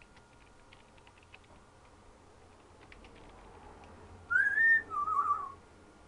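African grey parrot whistling: a loud rising whistle a little over four seconds in, then a shorter wavering whistle just after, preceded by a few faint clicks.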